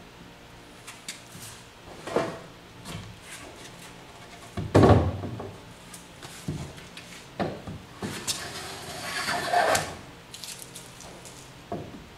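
Southern yellow pine boards being handled on a wooden workbench: several knocks as boards are set down and stood on edge, the loudest thump about five seconds in, and a scraping, rubbing noise of wood sliding over the bench for a couple of seconds after about eight seconds.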